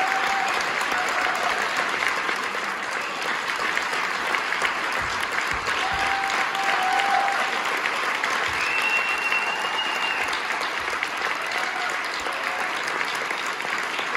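Large audience applauding steadily, with a short high call rising above the clapping a little past the middle.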